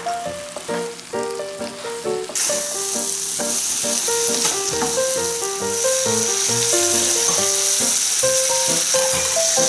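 Food sizzling in butter in a frying pan, becoming a loud, steady hiss about two seconds in, under background music of short plucked keyboard-like notes.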